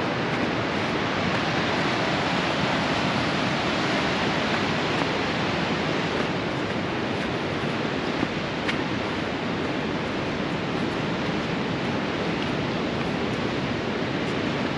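Rushing water of Nevada Fall and the Merced River, a steady, even noise with no breaks.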